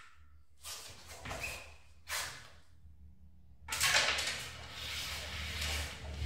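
Šprtec (button table hockey) pieces being struck and flicked across the board: a few short clicks and knocks, then a louder, longer burst of noise about four seconds in.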